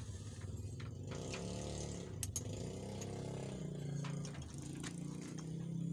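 An engine running at a low, steady pitch that steps up and down a few times, with a couple of sharp metallic clicks about two seconds in.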